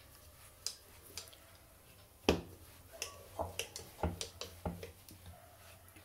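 Rolling pin and hands working a ball of dough on a round wooden rolling board: scattered light knocks and taps, the sharpest about two seconds in, then several more in quick succession.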